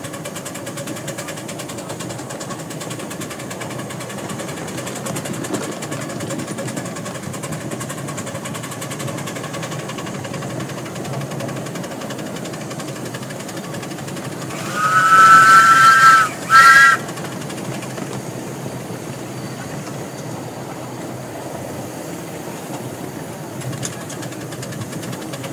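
Miniature steam locomotive running steadily under way with a train. About 15 seconds in, its whistle sounds twice: one long blast, then a short one.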